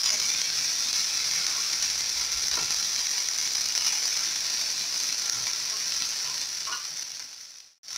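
Grated potato and carrot frying in hot oil with onions in a pan, a steady sizzle. The sizzle fades away and cuts out near the end.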